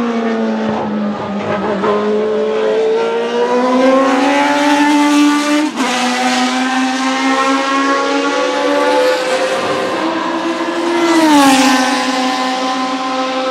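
Tyrrell 012 Formula 1 car's Cosworth DFY V8 running at high revs, its pitch climbing over the first few seconds, with a brief break about six seconds in. Near the end the car sweeps past and the engine pitch drops.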